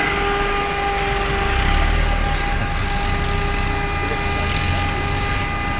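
Lada Niva driving slowly past on a rough dirt track, its engine running with a low rumble and a steady high whine that holds one pitch throughout.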